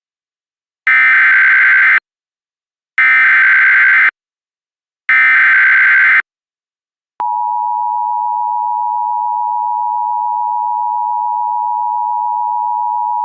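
Emergency Alert System header and attention signal: three bursts of SAME digital header data, each a harsh warbling buzz about a second long, then the steady two-tone EAS attention signal (853 and 960 Hz together) starting about seven seconds in.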